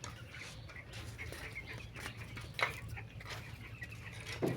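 Chickens calling faintly in short, scattered calls, with a couple of brief louder sounds, one past the middle and one near the end.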